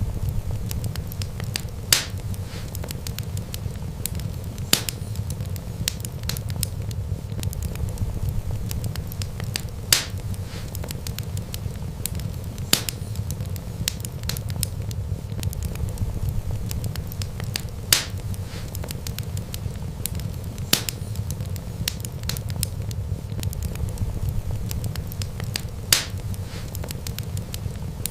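Wood fire crackling steadily over a low rumble of flames, with louder sharp pops every few seconds.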